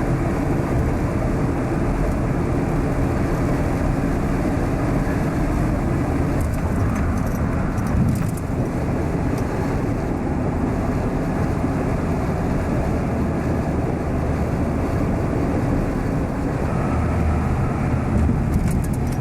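Steady road noise of a car being driven: engine and tyre noise at an even level, with no sudden events.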